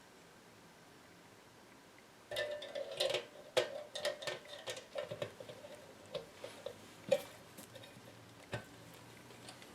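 Irregular light metallic clinks and taps, some ringing briefly, as a power transformer and its mounting hardware are fitted to a metal radio chassis. They start about two seconds in and die away near the end.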